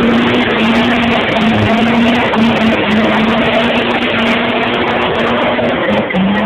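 Chevrolet Caravan station wagon doing a burnout: the engine is held at steady high revs while the rear tyres spin against the road and smoke. The engine note dips briefly near the end.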